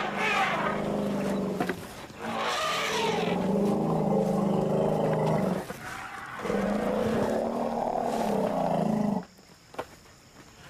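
African elephant family greeting each other with loud, overlapping rumbles and roars in three long bouts, the typical calling of a greeting ceremony after family members have been separated. The calling stops abruptly near the end.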